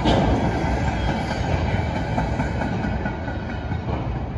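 Freight cars rolling over a railroad overpass: a steady rumble of wheels on rail, with a sharp click at the start and fainter clicks as wheels pass over the rail joints, easing slightly near the end.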